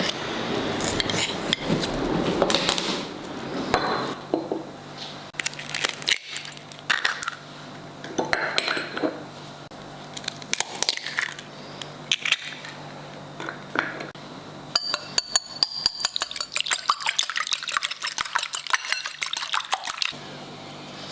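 Kitchen utensils clinking and knocking against a bowl, with liquid poured, as pancake batter is made. From about fifteen seconds in there is a fast run of light clinks lasting several seconds.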